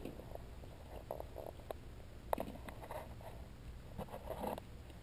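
Faint, scattered clicks and light knocks of plastic egg containers and a foam incubator lid being handled, the sharpest about halfway through, over a low steady hum.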